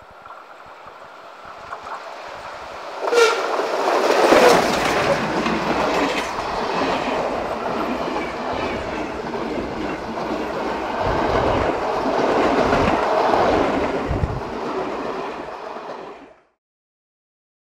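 ŽSR class 556.0 2-10-0 steam locomotive No. 556.036 approaching and passing close by with a sudden jump in loudness about three seconds in. Its train of coaches then rushes past with heavy thuds and clatter of wheels over the rail joints, until the sound cuts off suddenly about a second before the end.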